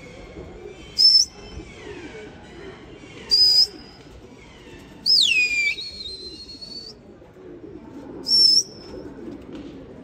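Four loud, sharp whistles, the third gliding steeply down in pitch before holding a lower note, over pigeons cooing.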